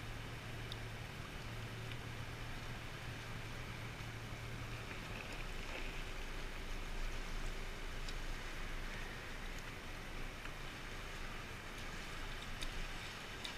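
Seawater washing and lapping in a sea cave around a drifting inflatable boat, as a constant noisy wash. A steady low hum fades out about five seconds in, and a few faint clicks sound near the end.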